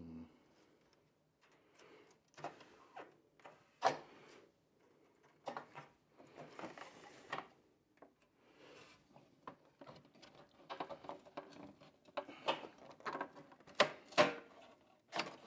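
Plastic and sheet-metal parts of a Yamaha Disklavier control unit's case being handled and pried at: scattered clicks, knocks and scraping rubs. They grow busier and louder near the end, with sharp clicks as the lid's plastic clips are worked free.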